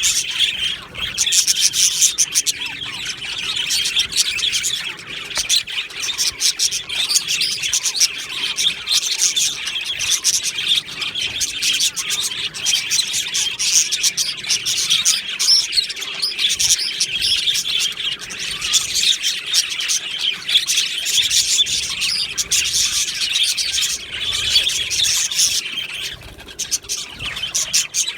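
A flock of budgerigars chirping and warbling all at once in a continuous, dense chatter, dipping briefly near the end.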